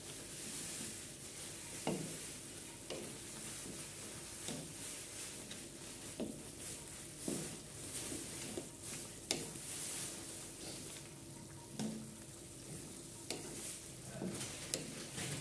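Pork pieces sizzling in a metal wok while a wooden spatula stirs them, scraping and knocking against the pan at irregular intervals about once a second.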